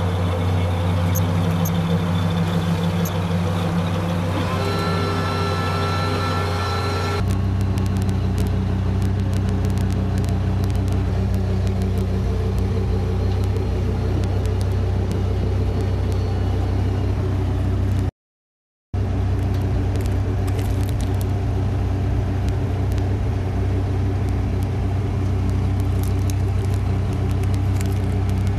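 A pickup truck's engine idling steadily. The sound changes abruptly about seven seconds in, taking on a deeper rumble, and drops out for under a second about eighteen seconds in.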